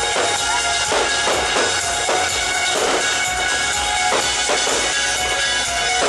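Music with drums playing, the pyromusical show's soundtrack.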